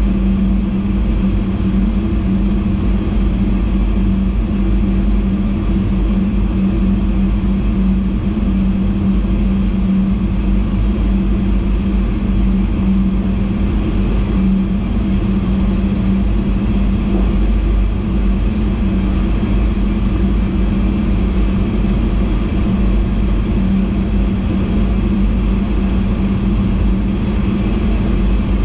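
NS VIRM double-deck electric intercity train running at speed, heard from the driver's cab: a steady rumble of wheels on track with a constant low hum over it.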